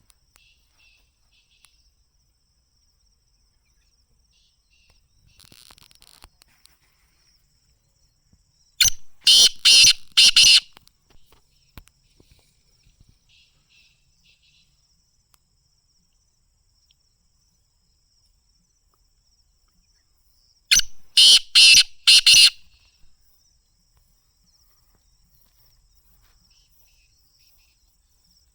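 Black francolin calling twice, about twelve seconds apart. Each call is a harsh, loud phrase of four or five quick notes lasting about two seconds. A faint steady insect trill runs underneath.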